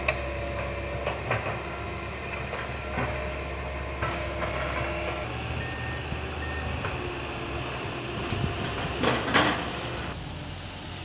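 Komatsu PC160 hydraulic excavator running steadily while it works, with scattered metallic clanks from the bucket and machine; the loudest clanks come as a pair about nine seconds in.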